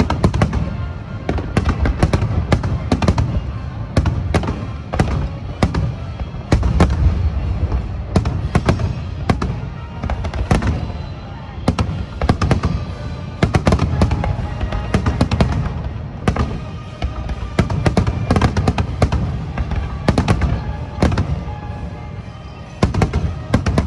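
Aerial fireworks shells bursting in quick, dense succession: sharp bangs and deep booms one after another, with music playing under them.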